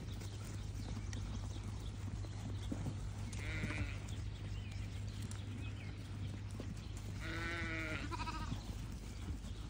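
Sheep and lambs bleating as the flock comes in: one short bleat about a third of the way in, then a longer wavering bleat followed by a shorter one near the end, over a steady low hum.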